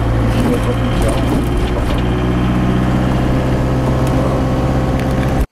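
Motorhome engine and road noise heard from inside the cab while driving, a steady low drone. It cuts off suddenly near the end.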